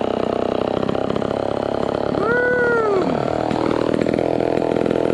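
Vintage Homelite XL12 two-stroke chainsaw engine running steadily, with one quick rise and fall in pitch about two seconds in, after its carburetor was set a little leaner on the high end.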